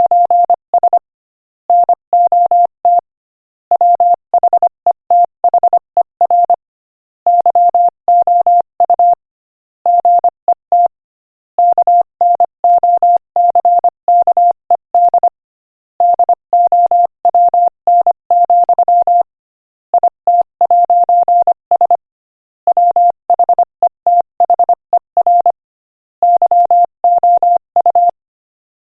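Morse code sent at 25 words per minute as a single mid-pitched beep tone, short and long beeps in quick groups with brief pauses between words, spelling out a quotation.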